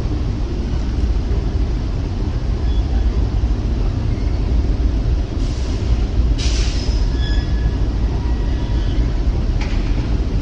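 Norfolk Southern freight train crossing the steel Portage Viaduct overhead: a steady deep rumble from the bridge, with high metallic squeals about five to eight seconds in.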